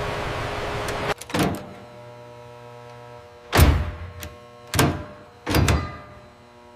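A steady rushing noise cuts off about a second in, then a series of heavy mechanical thumps, roughly one a second, with a faint steady hum between them.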